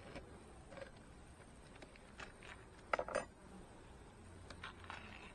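Beehive frames being handled: scattered light clicks and knocks, with a short cluster of sharp clinks about three seconds in.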